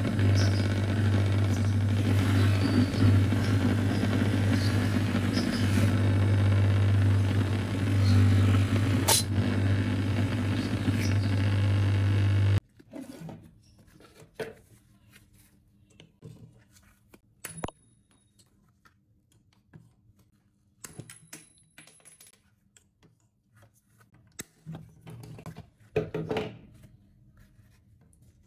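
Bench grinder running with a polishing wheel, a knife blade pressed against it: a steady motor hum with grinding hiss that stops abruptly about twelve seconds in. Then sparse small metal clicks and snips, a few with a brief high ring, as the pins through a wooden knife handle held in a vise are cut off with pliers.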